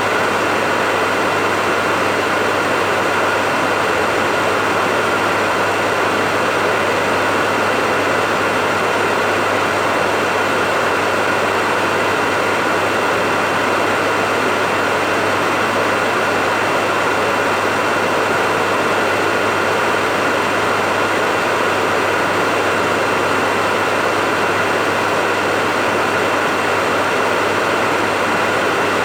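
Hair dryer running steadily on one setting: an even rush of air over a low motor hum and a faint steady whine.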